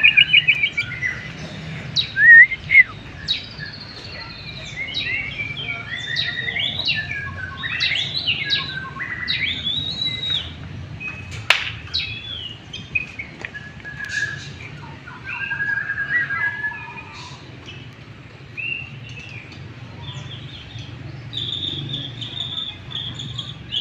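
White-rumped shama (murai batu) in full song, a fast, varied run of whistles, chirps and sliding notes, set off by a rival ciblek's cage nearby. One sharp click about halfway through.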